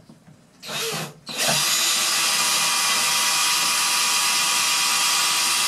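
Cordless drill boring a pilot hole through a birch cabinet frame so the screws won't split the wood: a short burst about a second in, then a steady run at constant speed.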